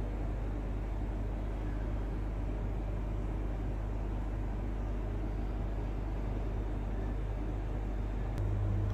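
Steady low hum and rumble. About eight seconds in there is a click, and the hum gets louder after it.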